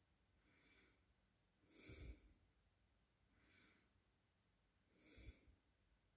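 Near silence broken by a person's slow breathing close to the microphone: twice, a soft breath followed by a louder one with a low puff of air on the mic.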